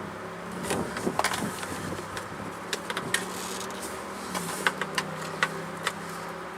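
A small electric motor hums steadily, its pitch dropping slightly about four seconds in, with scattered sharp clicks and taps over it.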